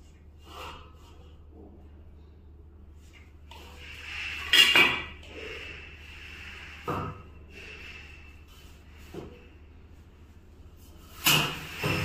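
Perforated galvanized steel cable tray being shifted and set down, giving several metal clanks. The loudest comes about four and a half seconds in and rings briefly after it, smaller knocks follow, and another loud pair of clanks comes near the end.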